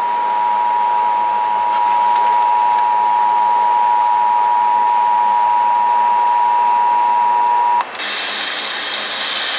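Emergency Alert System two-tone attention signal (853 and 960 Hz sounding together) playing over a radio, marking the start of an emergency alert. It holds steady for nearly eight seconds, then cuts off suddenly into radio hiss.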